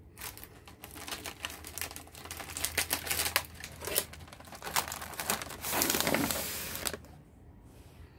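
Plastic packaging crinkling and rustling close by, a dense run of crackles lasting about seven seconds, with a longer, louder rustle near the end before it stops.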